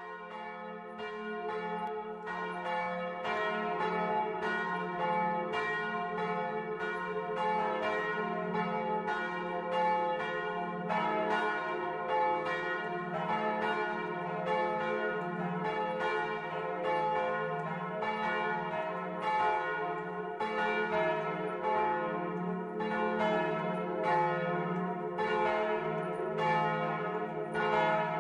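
A peal of several large swinging church bells ringing together, their strikes overlapping into a continuous clangour. The ringing swells over the first two or three seconds, then holds steady.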